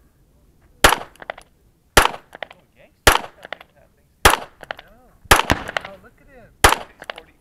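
Seven 9mm pistol shots from a Smith & Wesson M&P9L Performance Center CORE, fired about a second apart with a quick pair of shots near the middle. Each shot is trailed by fainter echoes.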